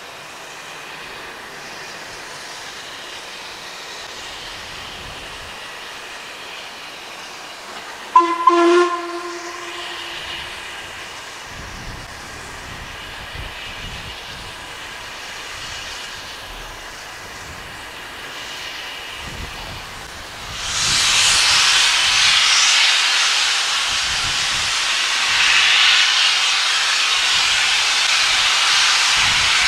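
Steam locomotive sounding one short whistle blast, then letting out a loud, steady hiss of escaping steam from about two-thirds of the way through.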